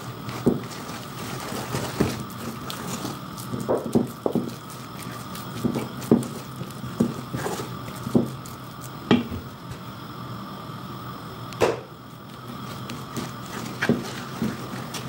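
A metal knife stirring potato dough in a bowl, with irregular scrapes and sharp taps against the bowl as flour is worked into the mashed potato. A faint steady hum runs underneath.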